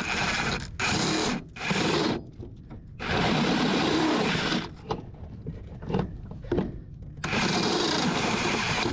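Power drill with a step drill bit enlarging a hole, run in five short bursts with pauses between, the longest about a second and a half.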